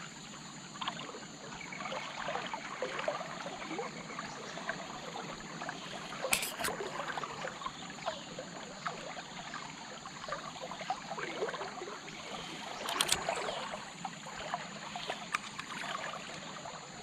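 River current running past a wading angler, a steady watery rush with small crackles. Two short sharp clicks stand out, about six and thirteen seconds in.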